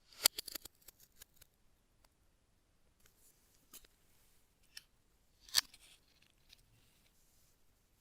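Sharp clicks and light handling noises from small hard objects: a quick run of clicks in the first second and a half, a few scattered ones, then a single louder click about five and a half seconds in.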